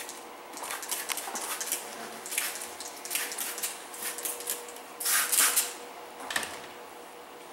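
Hand-held trigger spray bottle squirting slip solution onto paint protection film in a string of short hissing bursts, the longest and loudest about five seconds in.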